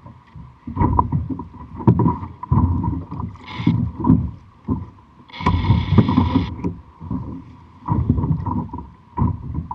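Water slapping and sloshing against the hull of a Native Slayer Propel 10 kayak in choppy swells, with low thuds about once a second and a brief hiss about five seconds in.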